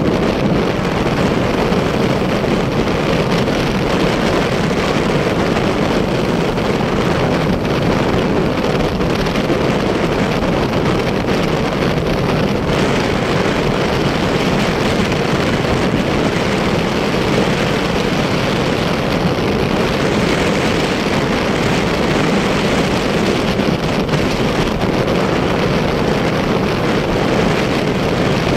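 Steady wind rush over the microphone mixed with motorcycle engine and road noise while riding at speed.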